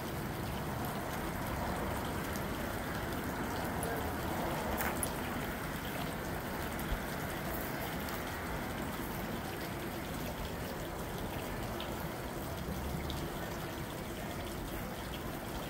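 Steady outdoor ambience: an even rushing noise with no distinct events.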